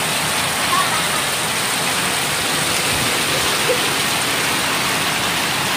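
Heavy rain pouring down steadily, with runoff streaming off a corrugated roof edge and splashing on the ground.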